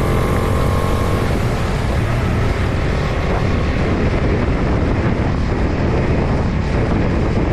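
Steady wind and road noise from a moving motorcycle, a loud, even rush with a heavy low rumble.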